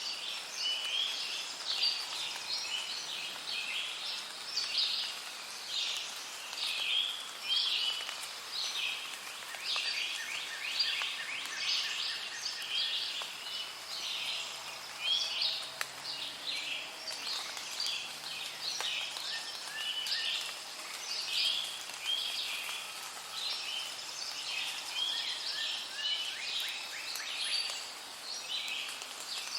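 Many birds chirping and singing at once in a dense, continuous chorus of short, high calls and trills.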